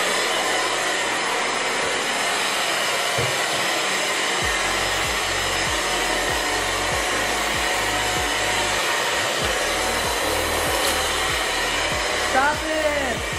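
Kaisa Villa corded handheld vacuum cleaner running steadily, its motor giving a constant whooshing hiss as it is pushed over a tiled floor to suck up litter.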